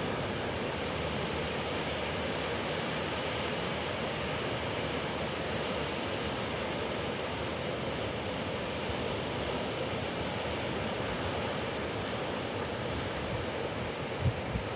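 Steady wash of ocean surf, with wind rumbling on the microphone and a brief low thump near the end.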